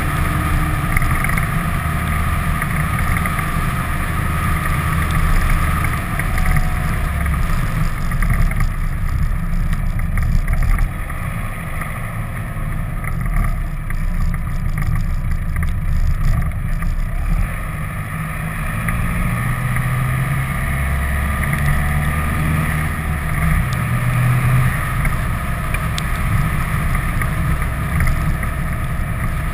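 Vehicle driving along a winding mountain road: steady low rumble of engine and tyre noise with some wind on the microphone, the engine note shifting in pitch in the second half.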